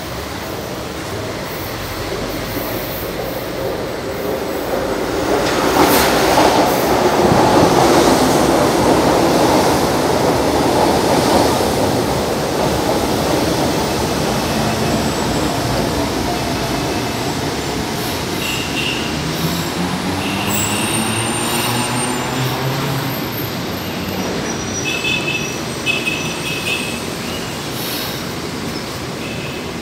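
São Paulo Metro train arriving and braking to a stop at the platform. A loud rush builds about five seconds in as the cars pass, then the motor whine falls in pitch as the train slows, with short high squeals near the end.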